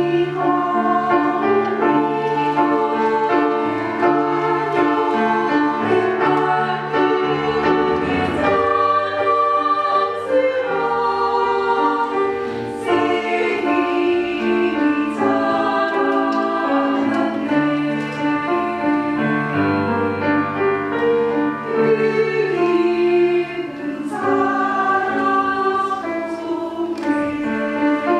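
A small women's choir singing a church song together, with keyboard accompaniment underneath.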